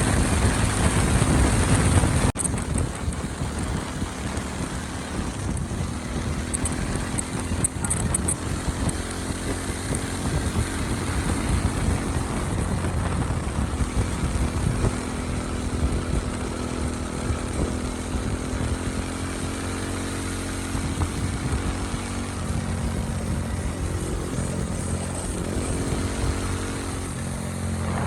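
Motorcycle engine running while riding, its note rising and falling with engine speed, over wind noise on the microphone.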